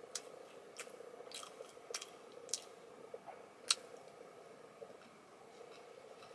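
Faint chewing of a soft, creme-filled sponge snack cake, with a string of sharp mouth clicks, the loudest a little past the middle. A faint steady hum lies underneath.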